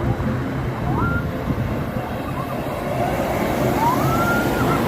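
Bus musical horns (telolet/basuri type) sounding a few rising siren-like sweeps, the last one longer and held at the top, over a steady rumble of bus engines and road noise.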